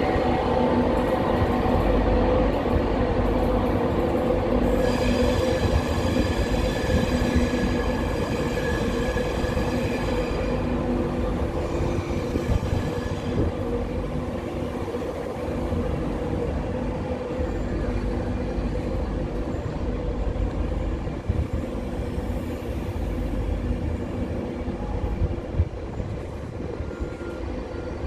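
LNER passenger train rolling slowly along the platform with a steady hum. A higher whine rises over it from about five seconds in and dies away a little before the middle. The sound fades gradually.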